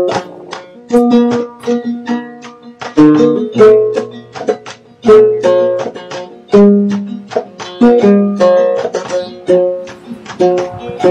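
Instrumental music of a plucked string instrument picking a quick melody, each note struck sharply and fading away.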